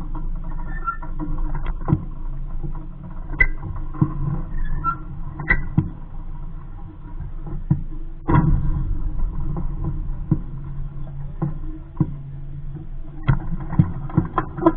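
Wind rumbling on the boat-mounted microphone of a small sailboat in a light breeze, with scattered sharp knocks and clicks from the hull and its fittings and water lapping against the hull.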